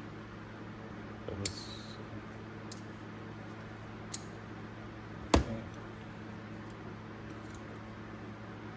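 Small metal ratchet parts and tools handled on a workbench: a few scattered clicks, one with a brief metallic ring about a second and a half in, and a sharper knock about five seconds in, over a steady low hum.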